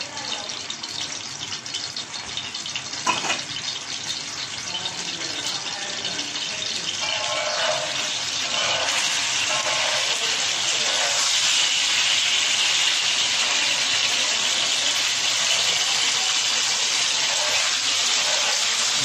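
Boneless chicken pieces sizzling in hot oil on a tawa, the hiss getting louder about halfway through and then holding steady as the pieces are spread and turned with a spatula. One sharp clack about three seconds in.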